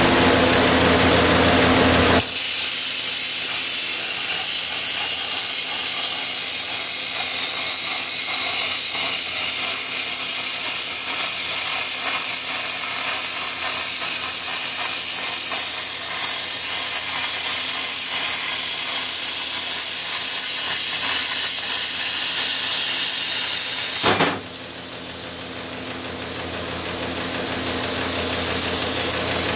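Hand-held plasma cutter cutting through steel plate: a steady harsh hiss that starts about two seconds in and cuts off sharply about 24 seconds in, after which a softer hiss continues and grows louder near the end.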